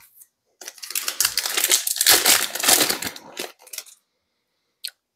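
A Panini Prizm basketball card pack's plastic wrapper crinkling as it is torn open, for about three seconds, followed by a single short click near the end.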